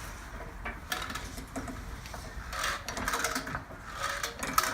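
Car jack being worked to raise a car, giving irregular metallic clicks and rattles that grow busier partway through.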